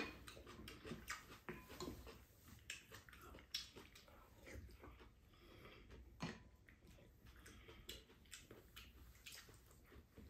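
Faint eating sounds: spoons and chopsticks clicking against rice bowls, with chewing. A slightly sharper clink comes about six seconds in.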